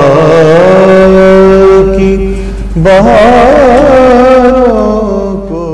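A man's voice sings slow, ornamented held notes in a devotional style over a low steady drone. A new, more wavering phrase begins a little before three seconds in, and the sound fades near the end.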